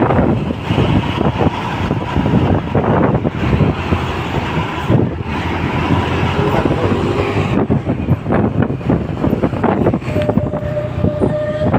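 Loud, continuous road-vehicle noise, engine rumble and tyre roar, with wind buffeting the microphone. A faint, steady horn-like tone comes in near the end.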